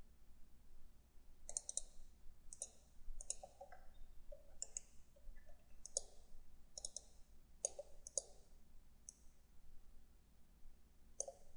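Computer mouse clicking, about ten faint, sharp clicks at irregular intervals as the CAD program is worked.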